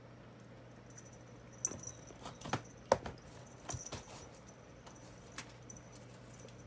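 A handful of light, sharp taps and knocks, bunched together from about two to four seconds in, with one more later, over a steady low hum.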